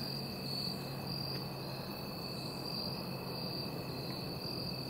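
Steady insect chorus in the woods: a continuous high trill, slightly pulsing, with a fainter steady tone beneath it.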